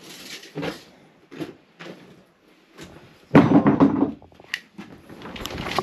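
Scattered knocks and clunks of lumber and building materials being handled during floor framing work, with a louder clunk and scrape about three and a half seconds in.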